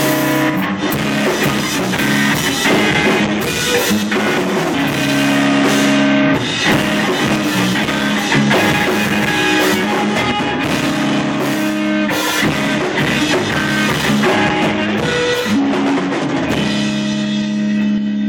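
A live rock band playing: drum kit and amplified electric guitar. Near the end the cymbal wash falls away and a held chord rings on.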